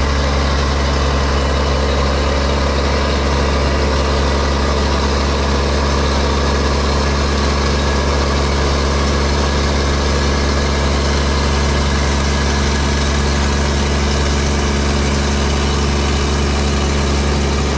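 Passenger riverboat's engine running at a steady, unchanging drone, heard from inside the covered cabin, with an even hiss over it.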